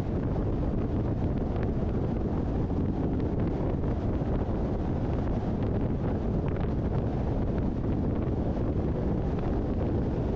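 Steady road and wind noise from a car driving along, with wind buffeting the microphone.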